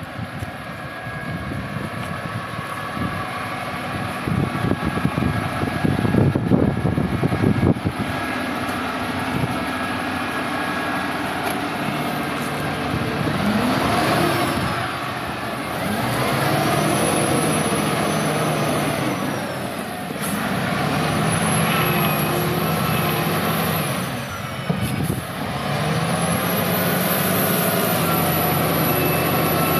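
LiuGong 848H wheel loader's diesel engine running, and from about halfway revving up and down several times, each rise held for a few seconds, with a high whine rising and falling along with it.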